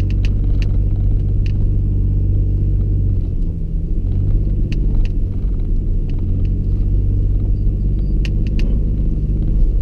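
Nissan Xterra Pro-4X's V6 engine and drivetrain running steadily as a deep rumble heard inside the cabin while the SUV drives over soft beach sand. The engine eases off briefly about three seconds in, then picks back up. Scattered light clicks and rattles come through over the ruts.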